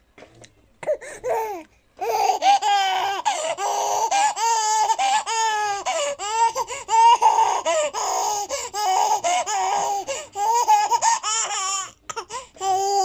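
Eight-month-old baby laughing hard and uncontrollably: rapid, high-pitched pulsing giggles. A couple of short laughs come first, then a long, nearly unbroken run of laughter begins about two seconds in, with one more burst after a brief pause near the end.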